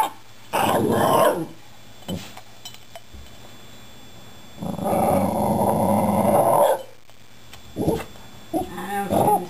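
A Shiba Inu 'talking' in growly grumbles: a short growl about a second in, a longer growl of about two seconds in the middle, then a wavering, whiny vocal near the end.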